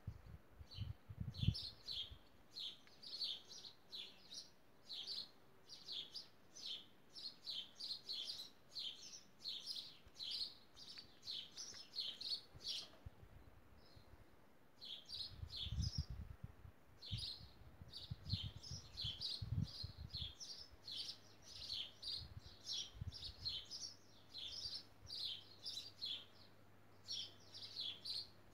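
A small bird chirping over and over in short high chirps, about two or three a second, with a brief pause about halfway. Low muffled thuds come at the start and again in the middle, and a faint low hum sets in during the second half.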